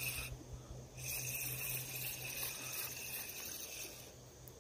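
Spinning reel being cranked, a fast high whirring from its gears, in two spells: briefly at the start, then again from about a second in for about three seconds, as a hooked small rock bass is reeled in.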